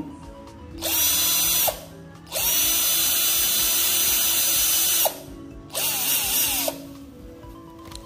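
18-volt cordless drill run with nothing in the chuck, in three bursts: a short one about a second in, a longer one of nearly three seconds, and another short one. Each burst spins up and winds down quickly, and in the last the speed wavers up and down as the trigger is feathered.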